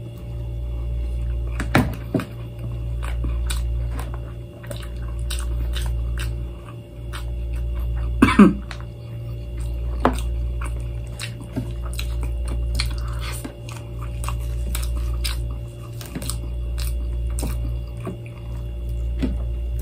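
Close-up eating sounds: chewing a mouthful of rice and chicken, with many small wet mouth clicks and smacks and a few louder ones. A steady low hum runs underneath.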